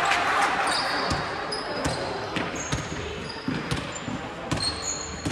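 Basketball bouncing irregularly on a wooden court during play, with sneakers squeaking briefly on the floor and shouting voices that fade over the first couple of seconds, all echoing in a large hall.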